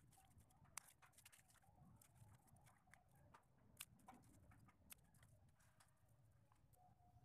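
Near silence with faint scattered crackling and a few sharp clicks, from hands handling Philodendron Burle Marx roots in dry fibrous mulch.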